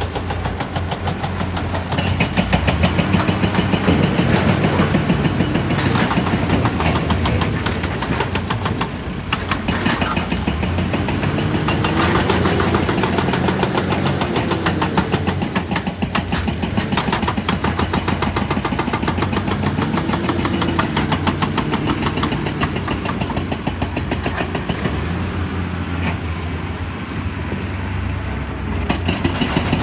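Excavator's diesel engine running steadily with a fast, even chug, its note rising and falling twice as the machine works under load.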